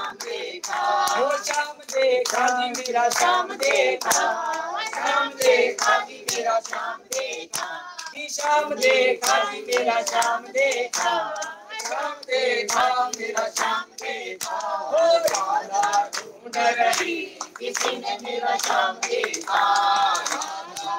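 A group of devotees singing a devotional chant together, keeping time with rhythmic hand clapping.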